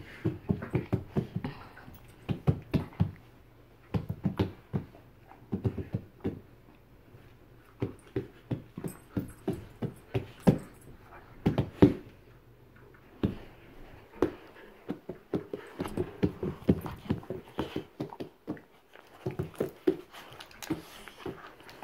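Two bull terriers play-fighting, making bursts of short, rapid dog sounds about a second long, with brief pauses between bursts.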